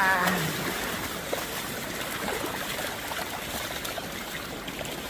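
Steady trickling of water with a few faint small splashes.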